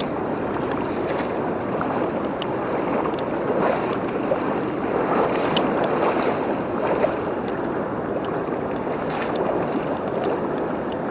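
A single-bladed paddle dipping and pulling through fast river current, with the steady rush and splash of the water around it, a little louder in the middle.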